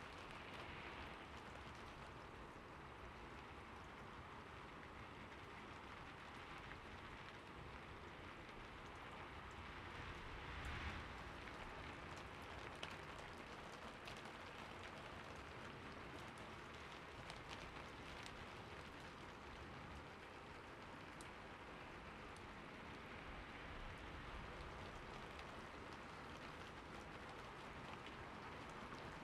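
Faint, steady rain-like hiss with a few light ticks scattered through it and a slight swell about eleven seconds in.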